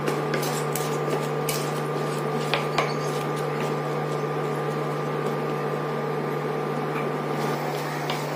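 Induction cooktop humming steadily while a wooden spatula stirs drumstick pieces in a nonstick pan, with light clicks and scrapes of the spatula against the pan, mostly in the first few seconds.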